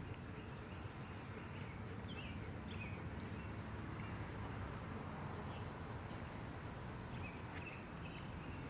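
Faint background: a steady low hum with scattered short, high chirps, some sweeping down in pitch, typical of small birds calling.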